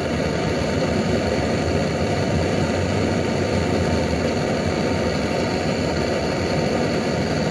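Butane gas torch burning steadily with a blue flame: a continuous, even noise.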